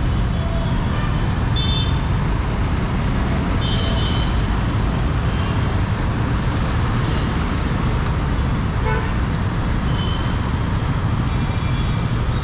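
Steady road traffic rumble with several short vehicle-horn toots scattered through it.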